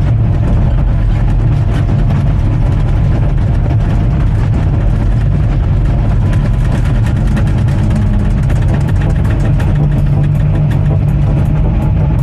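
Bulldozer diesel engine running steadily, a dense low rumble, with a quick run of evenly spaced clicks from about eight seconds in.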